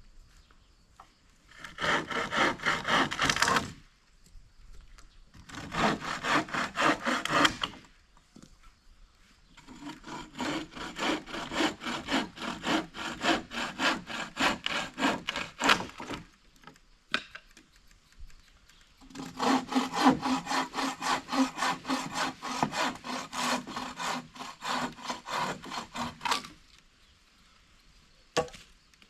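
Hand saw cutting through wood in quick, even back-and-forth strokes, in four spells with short pauses between, the last two the longest. A single sharp click near the end.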